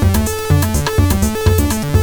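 Electronic jam: a Roland TR-8 drum machine plays a steady kick-drum beat with fast hi-hats, under a stepping synth bass sequence from a Behringer TD-3-MO and Arturia Minibrute 2S.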